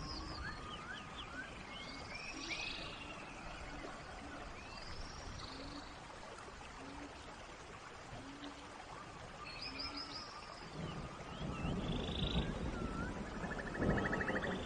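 Steady rain in a forest, with birds calling and chirping over it and short low calls repeating about once a second. A deeper rumble grows louder near the end.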